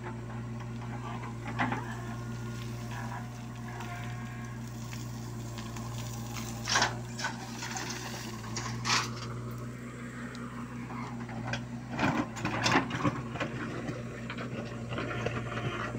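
JCB 3DX backhoe loader's diesel engine running steadily as the backhoe digs and dumps soil. Several sharp knocks and clatters from the bucket and stones come through over the engine, with a cluster of them a few seconds before the end.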